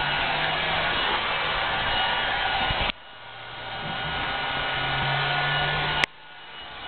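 Steady, loud rushing noise like a blower, with a faint low hum under it. It cuts out abruptly twice, the second time with a sharp click, and swells gradually back up after each drop.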